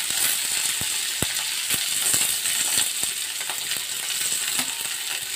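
Hot oil sizzling in a kadhai with cumin and curry leaves as mashed boiled potatoes are scraped in, with scattered light clicks of a steel spoon tapping against a plastic tray and the pan.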